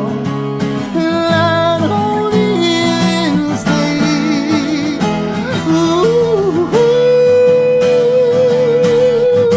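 Background music with guitar: a melody line glides between notes, then holds one long wavering note for the last few seconds.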